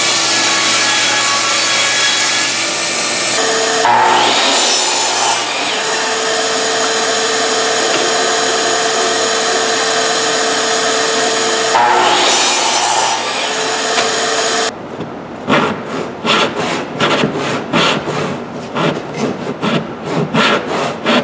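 Power saw running and cutting through a 6-inch wooden board, with a steady motor whine whose tone shifts as the blade works through the wood. At about fifteen seconds it stops, and a run of irregular rubbing strokes on wood follows.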